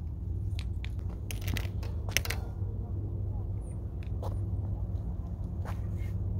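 A handful of sharp clicks and taps over a steady low rumble. The loudest cluster comes about two seconds in.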